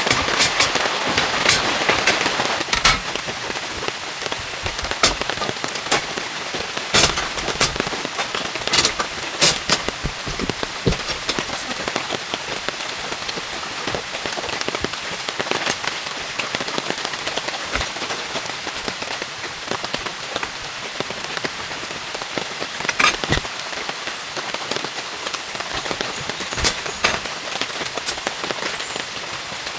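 Steady rain hiss, with scattered sharp taps of drops landing close by, a few louder than the rest.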